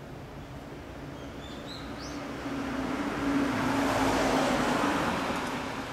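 A vehicle passing by: a rushing sound with a steady hum that swells to its loudest about four seconds in and then fades. A bird chirps briefly about two seconds in.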